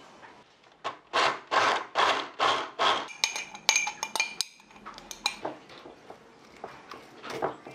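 Metal spoon scraping and pressing blended onion against a stainless steel mesh sieve, about five quick scraping strokes followed by light metallic clinks and another stroke near the end, squeezing the juice out of the onion.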